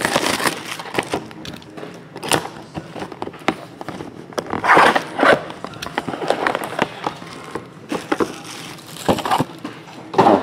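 Plastic shrink-wrap crinkling and tearing as it is stripped off a trading card box, in several separate bursts, with the cardboard box and its mini-boxes being handled and set down.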